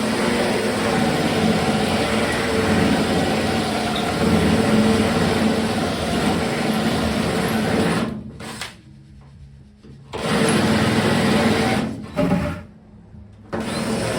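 Electric drill running under load, drilling through the outer layer of the truck's sheet-metal panel with a steady whir. It stops for about two seconds roughly eight seconds in, runs again, pauses once more near twelve seconds, then starts again.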